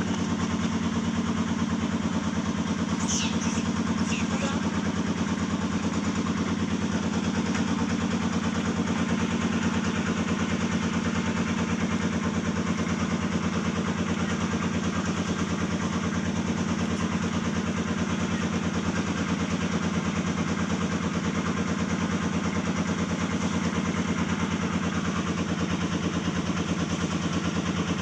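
A steady, unchanging motor drone with a fast even pulse, like an engine idling. About three and four seconds in come two short high-pitched squeaks.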